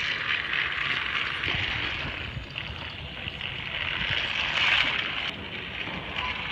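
Battery-powered TrackMaster toy train motor whirring as it pulls its two coaches along plastic track. It grows louder about a second in and again around four to five seconds in, as the engine passes close.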